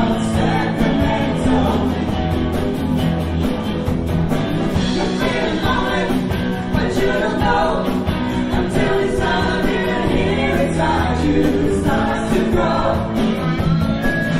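Live cover band playing a 1970s pop song: two women singing over electric and acoustic guitars, bass and drums, with steady cymbal strokes. The vocals come through clearest from about five seconds in.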